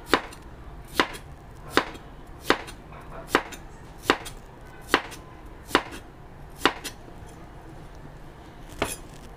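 Large kitchen knife slicing cucumber on a cutting board: nine evenly spaced chops, about one a second, then a pause and one more chop near the end.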